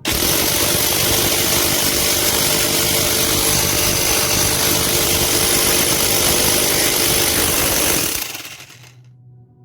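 PR 38 electric jack hammer running in hammer-only mode, a loud steady machine noise with a high whine, switched off about eight seconds in and spinning down.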